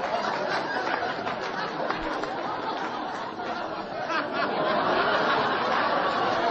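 A group of people chattering at once, with laughter and snickering mixed in; no single voice stands out.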